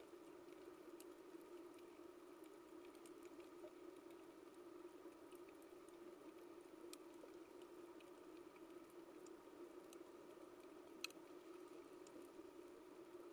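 Faint underwater coral reef ambience: a steady low hum with scattered faint clicks and crackles, and one sharper click about eleven seconds in.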